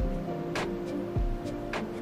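Background music with a slow, steady beat: sustained chords with a sharp drum hit about once a second and low kick-drum thumps.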